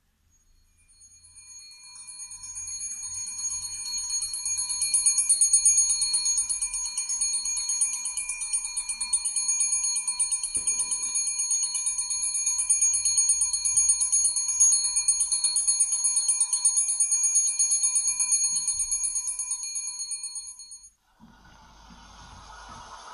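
Electric warning bell ringing continuously with a fast, even trill, announcing an approaching train; it cuts off suddenly near the end, and a train's rumble starts.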